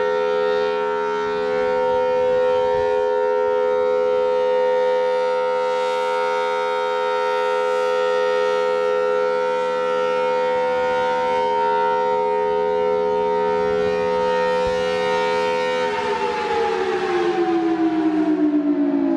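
Federal Signal Thunderbolt 1000T warning siren sounding a steady two-note chord. About sixteen seconds in, its pitch begins to fall, and it keeps falling.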